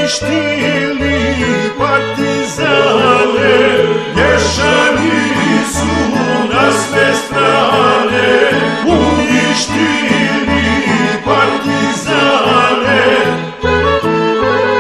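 Serbian folk song recording, an accordion playing the tune over a pulsing bass line, between sung verses.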